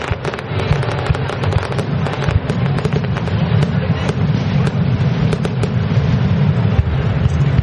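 Aerial fireworks bursting overhead: a dense run of sharp crackling pops over a continuous low rumble, the pops thinning out after the first few seconds.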